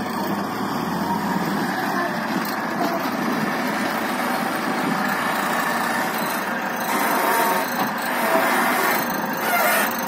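Compact wheel loader's diesel engine running under load as it carries a full bucket and raises the boom, getting louder in the last few seconds as the bucket is lifted over the dump truck.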